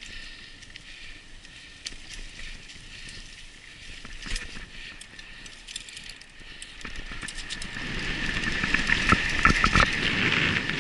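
Mountain bike riding over a dirt trail: the chain and frame rattling, with sharp clicks and knocks from bumps over a rushing noise. It grows louder from about seven seconds in, the rattling and knocks coming thicker near the end.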